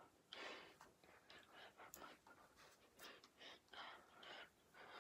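Faint, irregular breathing, a string of short puffs of breath from a person wearing a hockey-style mask.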